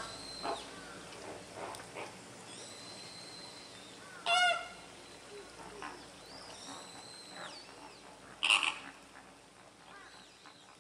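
A flock of flamingos calls with scattered goose-like honks. Two loud honks come about four and eight and a half seconds in, with fainter calls between them, and the sound fades away near the end.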